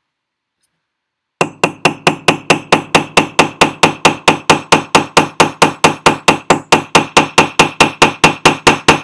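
Riveting hammer tapping a punch against a steel bench block in a fast, even run of light metallic strikes, about five a second, starting about a second and a half in. The hammering is flaring out the end of a tube rivet.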